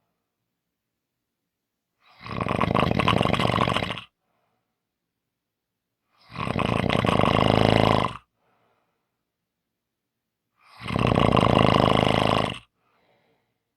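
A person snoring: three long snores of about two seconds each, repeating every four to five seconds, with silence between them.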